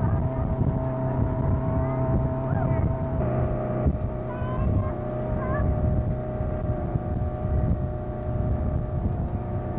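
Motorboat engine running steadily, heard from aboard the boat.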